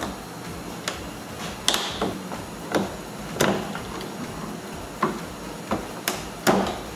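Plastic retaining clips of a Dodge Journey liftgate trim panel being pried loose with a hooked trim removal tool: a series of sharp clicks and knocks, about eight in all, spaced irregularly.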